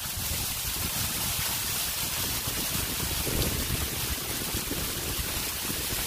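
Waterfall pouring down close at hand: a steady rush of falling water and spray, with an uneven low rumble underneath.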